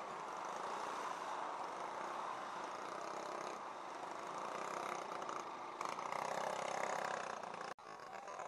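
Steady engine and traffic noise from a motorcycle creeping along in slow, heavy traffic among trucks and other motorcycles. Near the end the sound cuts off abruptly, and a fainter background follows.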